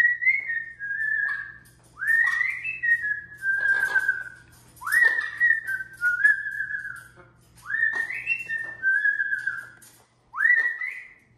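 Amazon parrot whistling a repeated two-part call, a rising note that drops to a lower held note, five times about every two to three seconds.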